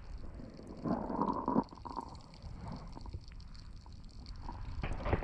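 Water heard from inside a submerged action-camera housing: a muffled low rumble with gurgling. It swells louder about a second in and again briefly near the end, over a faint steady crackle.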